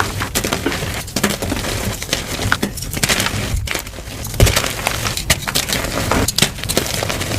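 Blocks of dyed gym chalk being crushed and crumbled by hand, with a run of dry, crunchy cracks and crumbling.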